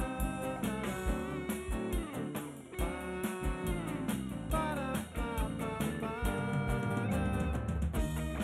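Live band playing an instrumental passage on drum kit, electric bass and electric guitars, over a steady kick-drum beat.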